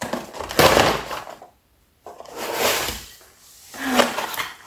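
A small cardboard box being opened by hand: scraping and rustling of cardboard and packaging in a few bursts, with a short pause about one and a half seconds in.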